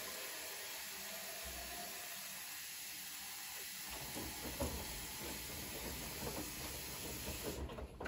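Water hissing steadily as a stream runs into the drum of a Bosch front-loading washing machine, cutting off abruptly near the end. From about halfway on, the turning drum adds sloshing and splashing of the soaked laundry.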